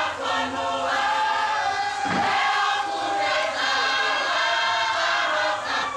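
Tongan choir of many voices singing a dance song together in harmony, with long held notes.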